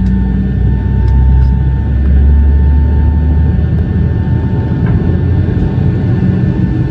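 Boeing 757 jet engine running during start-up, heard from inside the cabin as a loud, steady low rumble with a faint steady whine above it.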